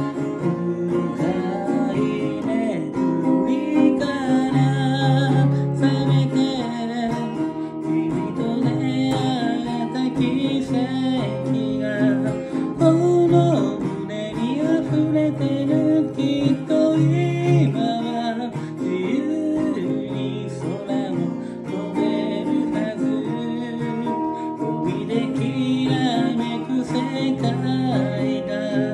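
A song sung to an acoustic guitar: a singing voice over guitar chords.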